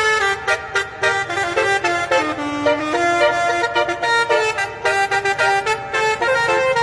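Telolet musical horn playing a quick tune, its notes stepping up and down one after another.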